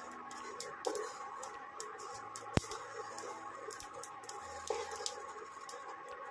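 Wooden spatula stirring dry seeds in a nonstick pan: the seeds rattle and scrape with many small clicks, and one sharper click comes about two and a half seconds in.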